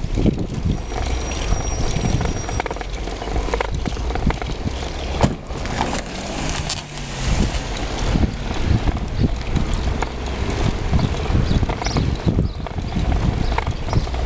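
A bicycle rolling over asphalt, heard through a camera mounted on the bike: irregular knocks and rattles from the bike and mount, over a steady low wind rumble on the microphone.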